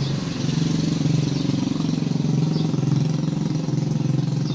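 A small engine idling steadily: a low, even hum with a fast regular pulse that does not change pitch.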